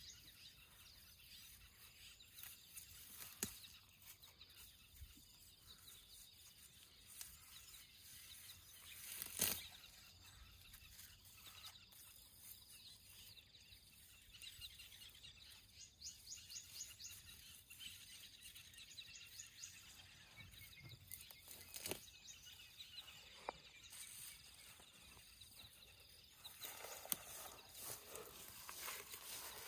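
Near silence in open air, with faint sounds of a young African elephant tearing up grass with her trunk and chewing it: a few soft snaps and scattered crackles.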